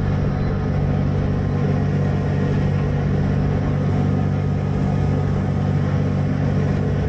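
A ferry's engines running at a steady, loud low hum on deck, unchanging throughout.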